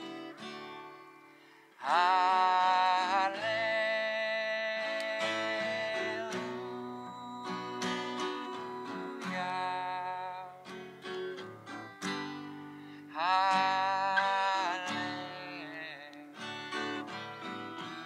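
Acoustic guitar played steadily with a man singing over it. His voice comes in suddenly about two seconds in on a long held note that lasts several seconds, and comes back for a shorter held phrase about two-thirds of the way through.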